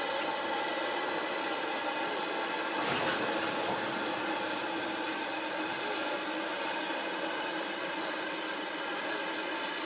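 BR Standard Class 2MT 2-6-0 steam locomotive hissing steadily with escaping steam as it moves slowly away, with a brief louder surge about three seconds in.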